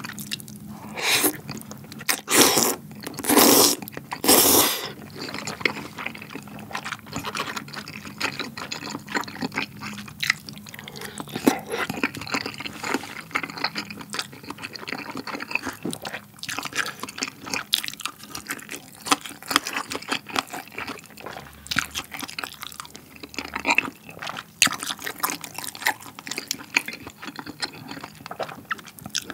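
Thick udon noodles in spicy tteokbokki sauce slurped up in four loud pulls in the first few seconds, followed by wet chewing with many small smacks and clicks of the mouth.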